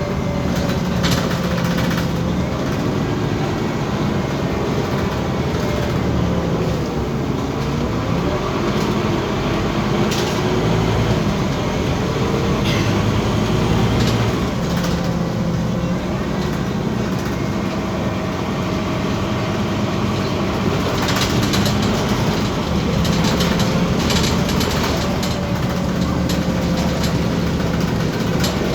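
Scania OmniCity city bus driving, its diesel engine note rising and falling several times as it accelerates and changes gear, with scattered clicks and rattles.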